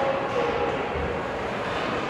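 Steady rumbling din of an ice hockey rink during a game, with faint voices from the crowd mixed in.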